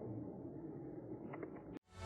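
Faint, muffled, steady noise with a few soft clicks about one and a half seconds in. It cuts off abruptly near the end.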